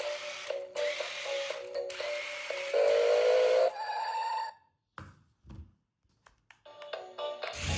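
Music with a repeating, bell-like electronic melody that stops about four and a half seconds in, followed by a few faint clicks before sound starts again near the end.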